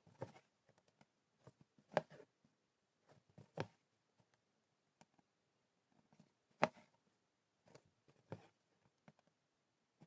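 Hand embroidery work: a few soft, irregular taps and clicks of needle and thread handled at the fabric in an embroidery hoop, the loudest about two-thirds of the way through.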